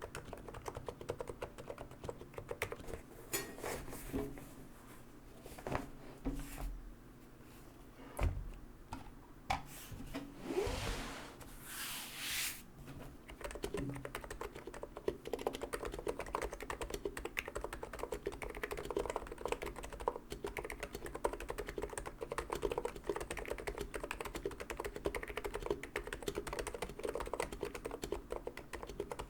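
NiZ Plum X87 electro-capacitive keyboard, with light 35 g rubber-dome switches, being typed on. Fast typing thins out to scattered single keystrokes with a brief rushing noise in the middle, then fast typing picks up again.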